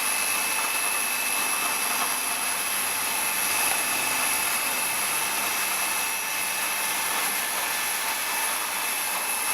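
Vial tray washing machine running: a steady mechanical hiss with a constant high whine and no change in pace.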